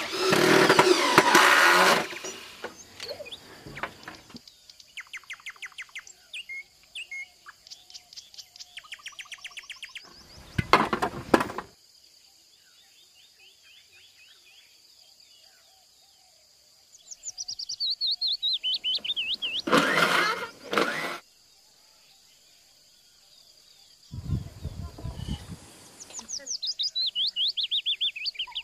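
A power drill runs for about two seconds, then birds sing in quick series of high chirps, some trills falling in pitch, broken by a few short, louder bursts of noise.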